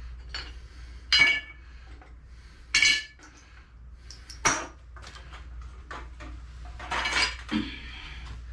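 Small metal engine parts being dropped and set into a disposable aluminium pie pan: about half a dozen separate sharp clinks and clatters, a couple of them ringing briefly.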